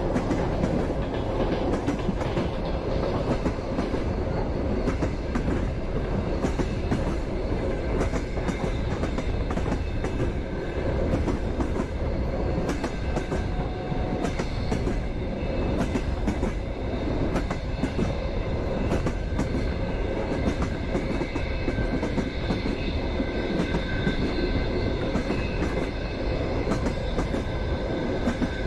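Passenger train running along the track, heard from aboard the carriage: a steady rumble with repeated clicks of the wheels over the rails. Faint high squealing tones come in during the second half.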